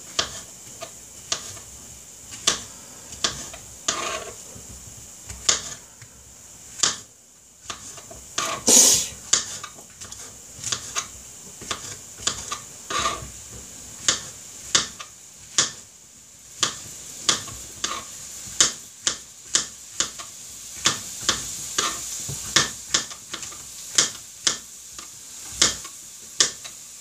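Kitchen knife chopping white button mushrooms on a wooden surface: a run of sharp taps as the blade strikes the wood, about one to two a second and quicker in the second half, with one longer, louder noise about nine seconds in.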